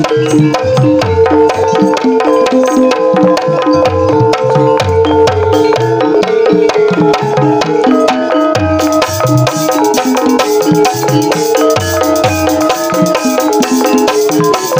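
Live Javanese gamelan playing ebeg dance music: bronze gong-chime notes ring over a fast, steady beat of low drum strokes and dense clicking strikes. A brighter, hissier metallic layer joins about nine seconds in.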